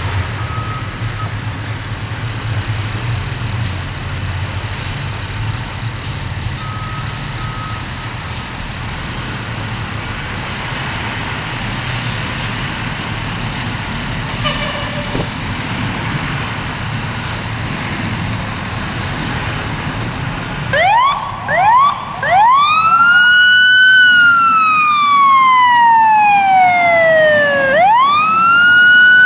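Fire engine running with a low rumble. About 21 seconds in, its siren starts with three short rising chirps and then winds into a long wail that rises, falls slowly and climbs again.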